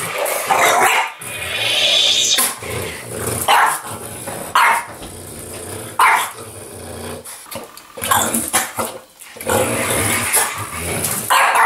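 Small dog barking in short, sharp barks several times, with growling between them, while play-fighting with a toy.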